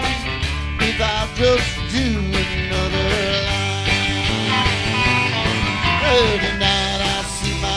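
Live country-rock band playing an instrumental break: electric guitars, bass and drums, with bending, gliding lead notes over a steady beat.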